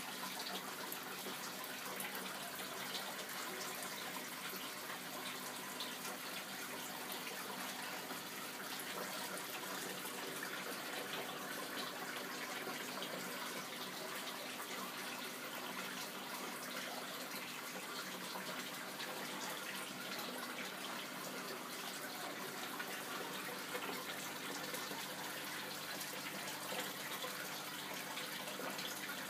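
Steady running and trickling water from an aquarium's water circulation, as from a filter outflow into the tank, with a faint steady hum underneath.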